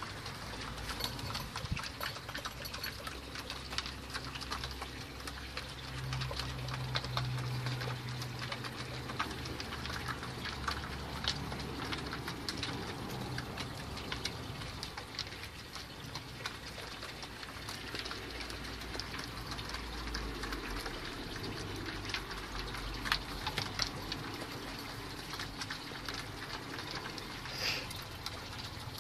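White homing pigeons pecking grain from a wooden trough feeder: a dense, irregular pattering of small clicks as beaks strike seeds and wood.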